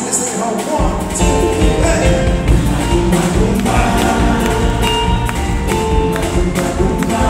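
Live jazz band playing: a man singing over electric guitar, electric bass and drum kit, with steady percussion strokes. The bass and drums come in strongly about a second in.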